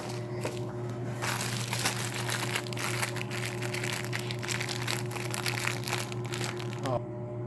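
Packaging crinkling and rustling in irregular crackles as it is struggled open by hand.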